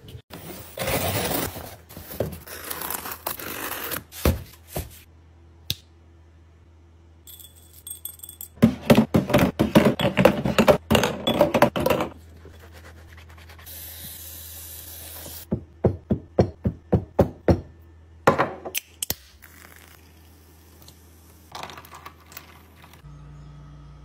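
Close-miked household handling sounds in separate bursts: quick runs of knocks, taps and scrapes, with stretches of steady hiss in between.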